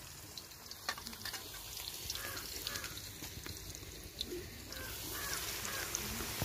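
Hot oil sizzling with small crackling pops in an iron kadai as food fries. Crows caw in two short runs, about two seconds in and again toward the end.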